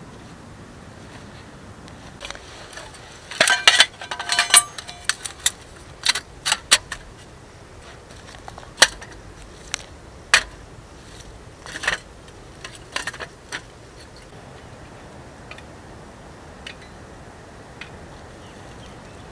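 A small folding steel box stove being handled and loaded with sticks and wood, metal clinking and rattling: a dense clatter with some ringing about three to five seconds in, then scattered clicks and knocks that thin out after about fourteen seconds.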